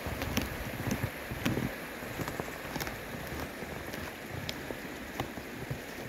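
Steady rushing noise of a rocky creek flowing, mixed with wind on the microphone. Scattered light ticks and a few soft thumps run through it.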